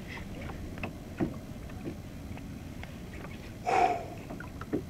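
Small waves lapping against a plastic sit-on-top kayak's hull, with scattered light knocks and clicks and one short, louder sound nearly four seconds in.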